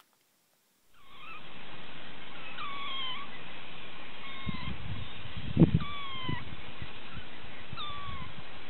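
A kitten meowing repeatedly, starting about a second in: several short calls, each falling in pitch, over a steady hiss. A few dull bumps come in the middle, the loudest about five and a half seconds in.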